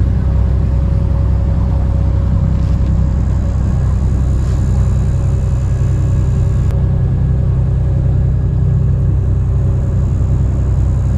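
Motor boat's engine running steadily under way, a loud, even low drone with a faint steady hum above it.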